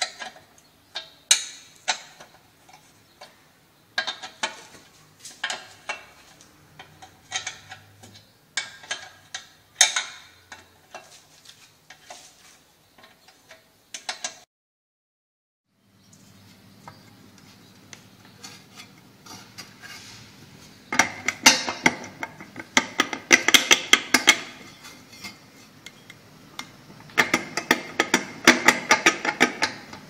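Metal parts of an automatic washing-machine transmission handled and turned by hand: scattered clinks and taps, then bursts of rapid ratchet-like clicking as the housing is turned. The sound cuts out for about a second and a half midway.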